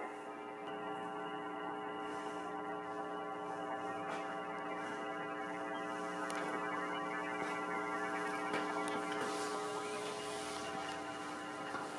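A steady hum with many evenly spaced overtones, holding one pitch throughout, with a few faint taps.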